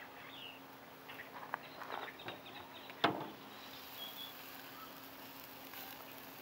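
Scattered clicks and taps of handling at a barbecue grill. The loudest is a single sharp clack about three seconds in, over a faint steady hum and a few faint bird chirps.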